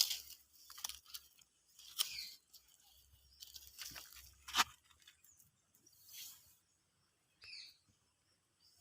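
Cat crunching and tearing at a caught squirrel: irregular crunches and rustles, loudest about two and four and a half seconds in.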